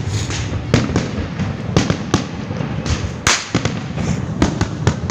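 Many fireworks going off at once: a dense, irregular run of bangs and pops over a constant rumble of more distant explosions, the loudest bang about three seconds in.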